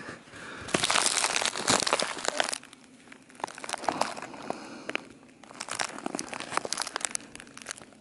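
Black plastic hive wrap crinkling and rustling as it is pushed and handled, in two long spells of crackling, the first about a second in and the second past the middle.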